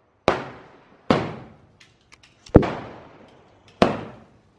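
Sky shot firework firing, four sharp bangs about a second apart, each trailing off in an echo.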